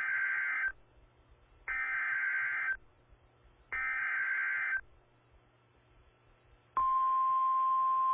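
Emergency Alert System SAME header from NOAA Weather Radio: three buzzy one-second data bursts about a second apart. Near the end the steady single-pitch 1050 Hz warning alarm tone starts and holds. Together they mark the start of a new weather warning broadcast.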